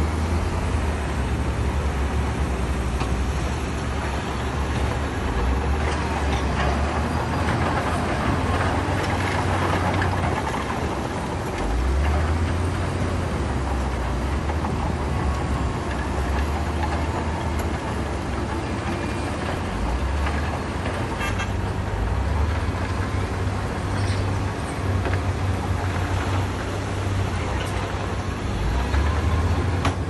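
Heavy diesel earthmoving machinery running hard, a deep engine note that swells and eases repeatedly as the machines work under load.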